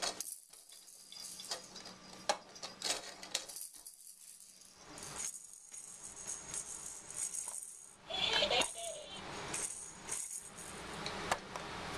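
Plastic baby-activity-center toys rattling and clacking as a baby bats and spins them: a bead-filled spinner rattling, with scattered sharp clicks and a louder clatter about eight seconds in.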